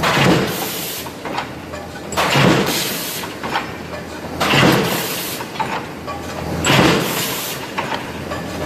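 Sheet-metal stamping press punching round blanks out of a metal sheet, cycling about once every two seconds. Each stroke is a heavy mechanical hit followed by a hiss, with a lighter click between strokes.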